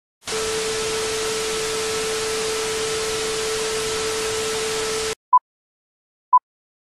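Television static sound effect: a steady hiss with a constant hum under it, which cuts off suddenly about five seconds in. Then the short high beeps of a film-leader countdown start, one a second, twice.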